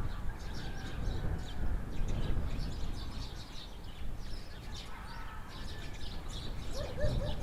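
Small birds chirping and twittering in short, scattered calls over a steady low rumble of outdoor background noise.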